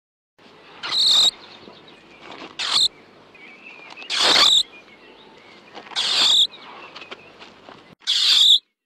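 Five short, high-pitched bird calls, a second or two apart, over a steady outdoor hiss.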